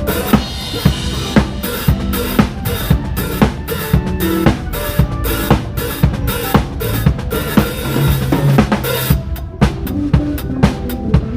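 Live band playing a pop song, with the drum kit close and loud: kick and snare on a steady beat about two hits a second, over bass guitar and keyboard chords. About nine seconds in the cymbal wash stops and the drums go on with lighter hi-hat ticks.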